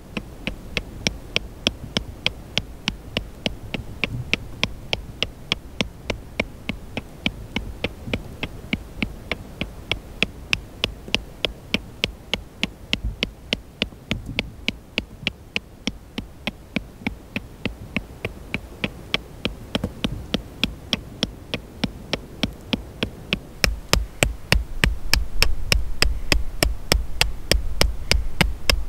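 Background music: a steady, fast ticking pulse over a low drone, with a deeper beat coming in about 24 seconds in and continuing to the end.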